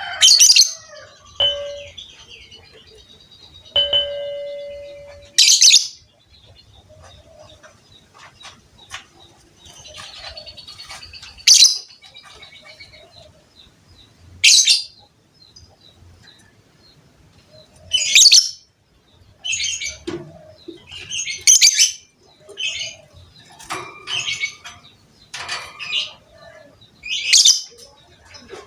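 Lovebird giving short, shrill, high-pitched calls every few seconds, coming faster and closer together in the last third.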